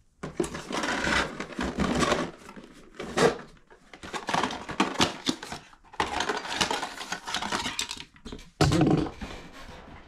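Rustling, crinkling and light clattering of packaging and small parts being handled, in irregular bursts with short pauses.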